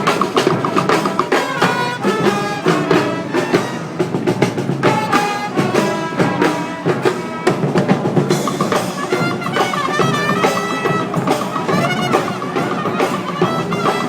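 Brass band playing, with horns carrying the tune over drums.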